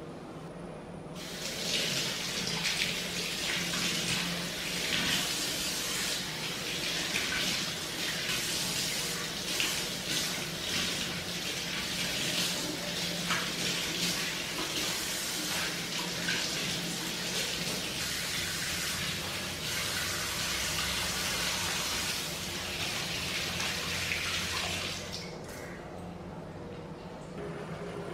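Kitchen tap running into a stainless steel sink, the water splashing as the sink is rinsed by hand. It comes on about a second in and shuts off a few seconds before the end.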